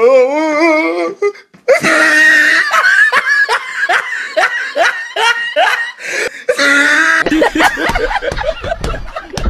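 Loud, hearty laughter in quick repeated ha-ha bursts, after a short wavering, drawn-out voice at the start.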